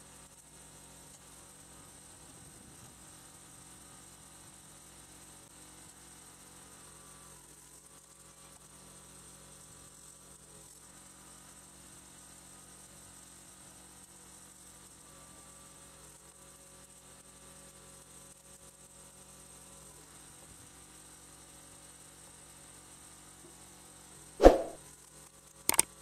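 A faint steady hum, then near the end one loud sudden pop with a short ring, followed by two quick clicks: the sound effects of a subscribe-button animation.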